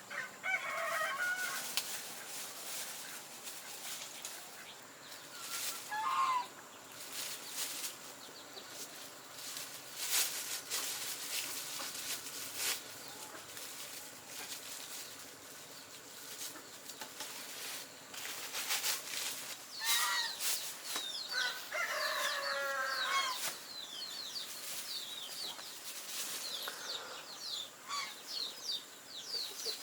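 Chickens clucking and calling now and then, with a few sharp knocks and rustles. Many quick high chirps come in the last ten seconds.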